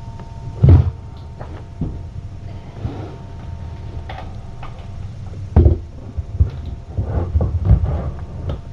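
Several dull knocks and thumps at irregular times over a steady low hum. The loudest come just under a second in and at about five and a half seconds, with a quicker run of smaller knocks a little later.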